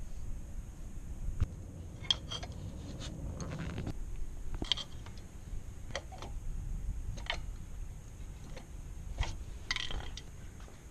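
Metal hand tools clinking and tapping against metal parts during front brake pad and rotor work, a series of separate sharp clinks at irregular intervals over a low steady hum.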